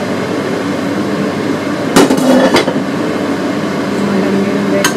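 Metal spatula knocking and scraping against a wok a few times about two seconds in, with one more click near the end, over a steady rushing kitchen noise.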